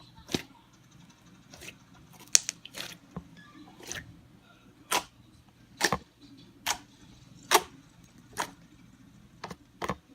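Sticky glossy slime being squeezed and pulled by hand, giving a series of short wet pops and clicks, roughly one a second.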